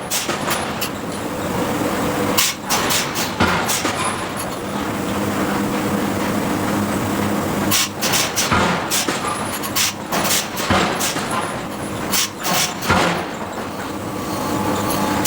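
Hydraulic forging hammer striking steel: sharp, irregular blows in clusters over the steady hum of the running hammer machinery.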